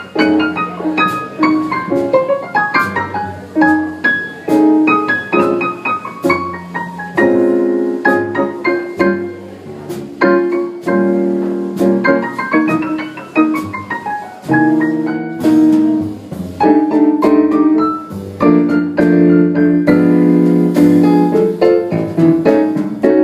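Jazz piano solo in a slow ballad, played as an instrumental break between sung choruses, with quick runs of notes rising and falling over sustained chords.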